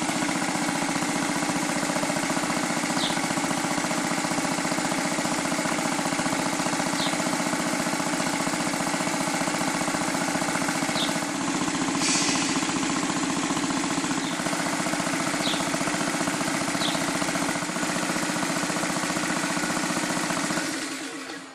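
Portable twin-tank air compressor running steadily, its piston pump chugging with a fast pulsing beat as it pumps air through a hose to charge an air cannon. It winds down and stops near the end.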